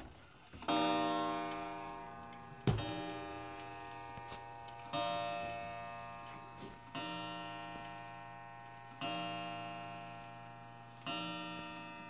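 Pearl weight-driven regulator wall clock striking six o'clock on its gong: six strikes about two seconds apart, each ringing on and fading slowly, with the clock ticking underneath.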